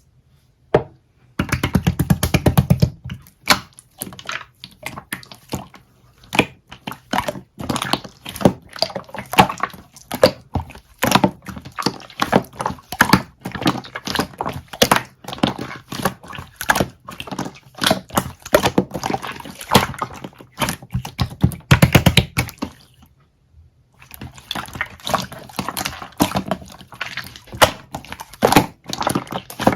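Soda jelly slime being squished, pressed and stretched by hand, giving rapid wet clicks, pops and crackles with a brief pause about two-thirds of the way through.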